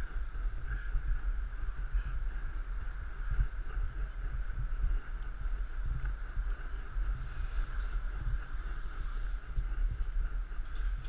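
Wind buffeting the microphone as the camera moves: an uneven low rumble, with a steady hiss above it.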